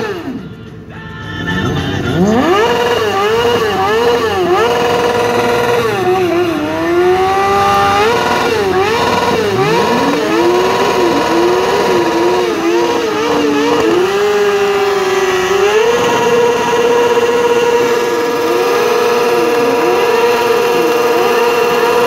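Stunt motorcycle engines revving hard, pitch repeatedly climbing and falling, with two bikes heard at once. In the second half they are held at high revs with short repeated dips while the rear tyres spin in burnouts.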